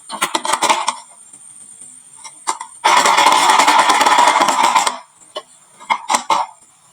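Marbles clattering down a wooden marble-run slope: a quick cluster of clicks at the start, a dense rattle of many marbles for about two seconds in the middle, and a few more clicks near the end.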